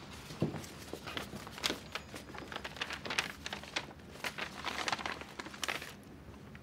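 Manila paper envelope being torn open and handled: irregular crinkling and tearing rustles that stop about six seconds in.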